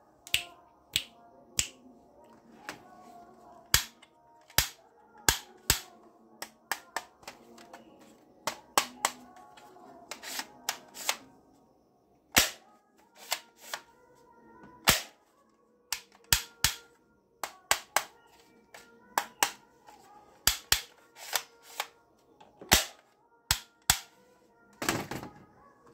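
Plastic toy guns being handled and worked: dozens of sharp plastic clicks and clacks at irregular intervals, with a longer rattling clatter near the end. Faint music plays underneath.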